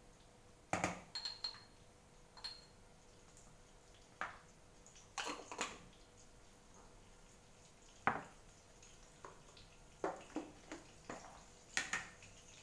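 Kitchen items clinking and knocking against a mixing bowl and the countertop: irregular short clacks, a few ringing briefly.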